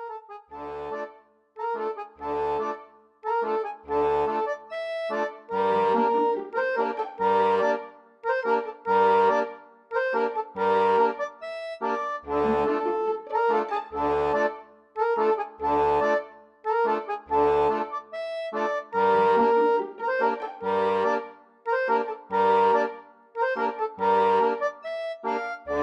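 Background music: a reedy, accordion-like melody over a regular bass beat.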